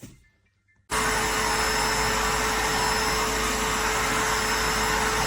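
DEWALT DXV04T 4-gallon wet/dry shop vac running at full power: a loud, steady rush of air with a constant motor hum and a thin high whine. It starts abruptly about a second in.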